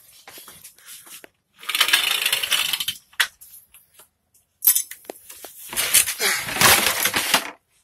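Hands rummaging through a pile of tools and parts: rustling and clattering in two bursts, the first about a second and a half in, the second longer, from about five seconds in.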